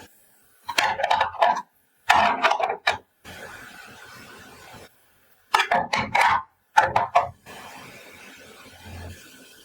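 Small plastic toy food pieces being handled and set down, in four short bursts of clicks and clacks.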